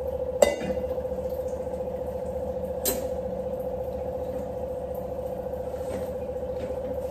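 Steel utensils clinking against steel cooking pots twice, sharply, about half a second in and again near three seconds in, over a steady hum.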